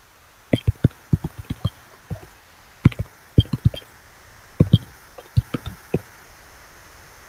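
A quick, irregular series of short knocks or taps, about twenty of them over five seconds.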